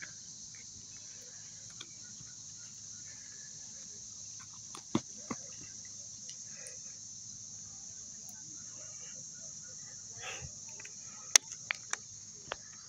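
Steady high-pitched chorus of insects at dusk. A few sharp clicks cut through it, one about five seconds in and a cluster near the end, the loudest just after eleven seconds.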